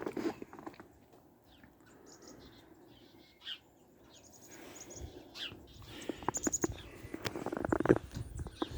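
Small birds chirping outdoors, short high chirps in brief series now and then. From about six seconds in, a run of crunching scuffs and clicks, louder than the birds.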